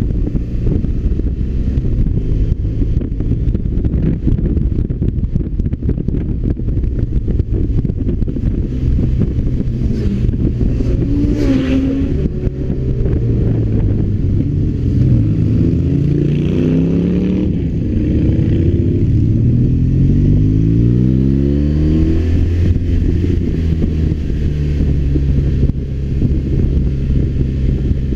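BMW R1200RT's boxer twin engine under way, with rough wind noise. In the middle its pitch rises several times as the bike accelerates, then it settles to a steady drone near the end.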